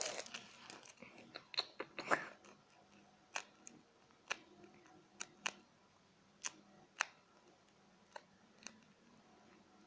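A handmade paper squishy being squeezed and handled: a short spell of paper crinkling near the start, then scattered light crackles and clicks.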